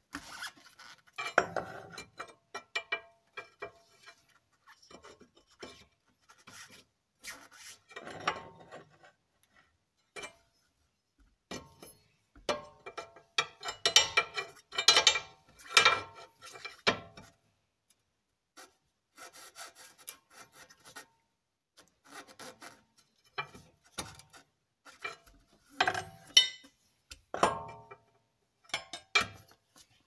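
A steel pry bar levered against a Toyota Sienna's front lower control arm and ball joint, checking the joint for play. Irregular scraping and clicking of metal on metal comes in several spells, with short pauses between them.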